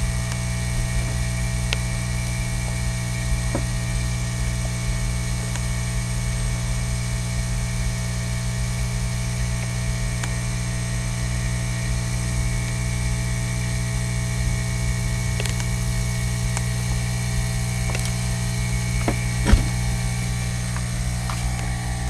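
A steady low electrical hum with a stack of even tones, and a few faint clicks from small wires and parts being handled, with one sharper click near the end.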